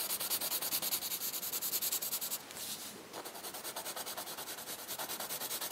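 Soft 2B graphite pencil hatching on drawing paper: rapid, even back-and-forth scratching strokes, with a brief pause about two and a half seconds in.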